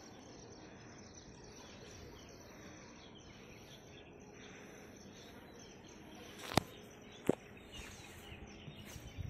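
Outdoor ambience: steady high insect chirring with faint, scattered bird chirps. Two sharp clicks come about two-thirds of the way in, under a second apart.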